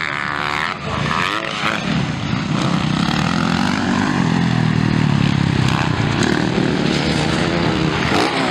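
Motocross bike engines racing past, their pitch rising and falling as the riders rev up and back off. The engine note is loudest around the middle.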